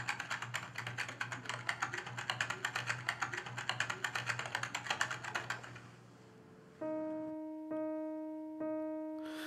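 Fast typing on a computer keyboard, a dense run of key clicks lasting about six seconds. Then three held piano notes sound about a second apart as a song's accompaniment begins.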